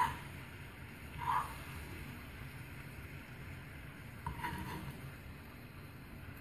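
Pepsi boiled down to a thick, smoking sugar syrup, bubbling over a flame: a low, steady hiss with a few soft pops, about a second in and again around four and a half seconds.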